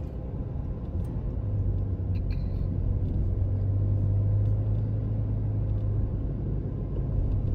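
Road and engine rumble heard inside a moving car. A steady low drone comes in about a second and a half in and drops away about six seconds in.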